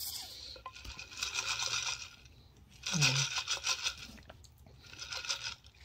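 Sipping iced coffee from an insulated tumbler full of ice, with crackly, crunchy sounds of the ice in three short spells and a brief falling hum about three seconds in.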